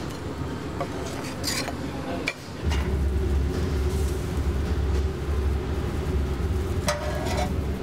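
A metal spoon clinks and scrapes in a stainless steel food pan, with a few sharp clicks and a longer scrape near the end. A steady low hum sets in about two and a half seconds in.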